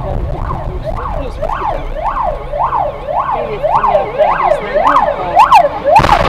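Ambulance siren wailing in a fast up-and-down yelp, about two sweeps a second, growing louder as it closes in, over the dashcam car's road noise. Near the end, a sudden loud crash of a collision cuts in.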